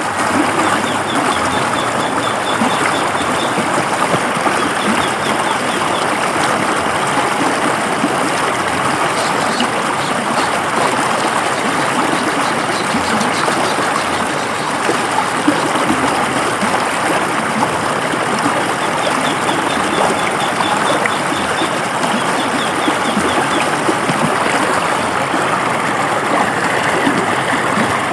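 River water flowing steadily over rocks, a constant rushing and babbling. A faint, high, rapid ticking trill comes and goes a few times over it.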